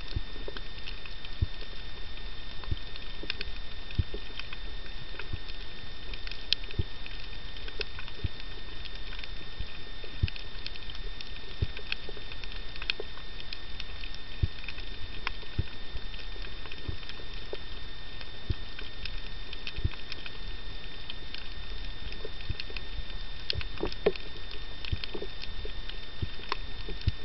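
Underwater reef ambience picked up by a camera underwater: a steady low hiss with short clicks and crackles scattered irregularly throughout, and two faint steady high tones.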